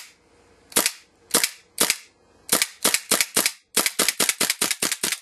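WE Colt 1911 gas blowback airsoft pistol firing, a sharp crack at each shot as the slide blows back. The shots start about a second apart and speed up, becoming rapid fire at about six or seven shots a second from about four seconds in.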